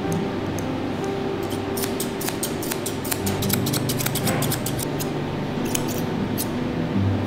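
Grooming scissors snipping through a cat's long fur in irregular runs of quick, sharp snips.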